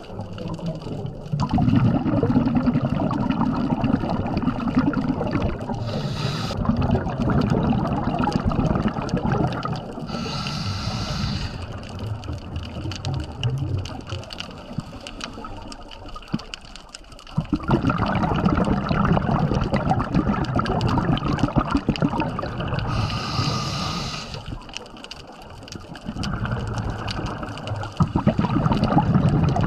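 Scuba diver's breathing through a regulator, heard underwater: long bubbling exhalations, broken three times by a short hissing in-breath.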